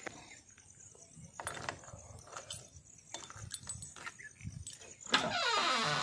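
Light clicks and rattles of a JCB 3DX backhoe's cab door handle and latch being worked as a rope is untied from it, then about five seconds in a louder creak that falls in pitch over most of a second.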